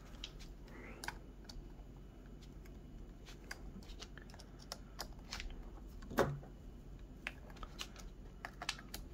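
Scattered small metallic clicks and ticks of a screwdriver working the screws of an aluminium RC wheel's beadlock ring, snugging them down, with one louder knock about six seconds in.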